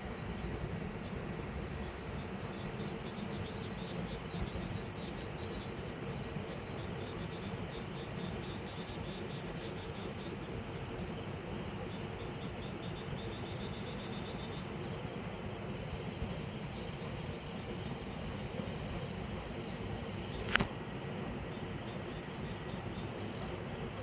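Night insects, crickets, chirping in rapid repeating pulses over a steady low hum of distant city traffic; the higher chirping thins out about two-thirds of the way through. About twenty seconds in, a single short, sharp sound drops quickly in pitch.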